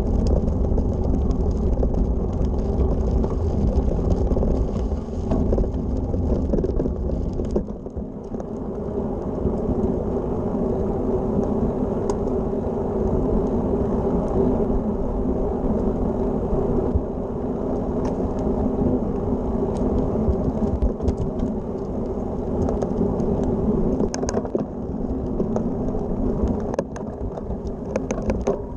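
Road bike on carbon wheels rolling along, its tyres rumbling over a gravel path. About eight seconds in the rumble drops to a smoother, quieter rolling noise on a paved path, with scattered small ticks.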